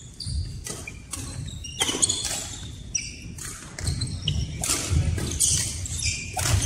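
Badminton rally: shoes squeaking briefly and often on the court floor, mixed with sharp knocks of rackets hitting the shuttlecock and players' footfalls.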